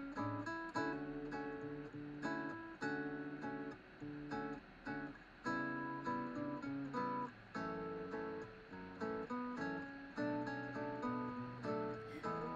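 Background music: a calm acoustic guitar piece, a plucked melody over a steady bass line.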